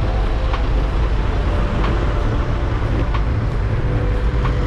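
Wind rushing over the microphone and road rumble while cycling along a busy road, with a light click repeating about every two-thirds of a second.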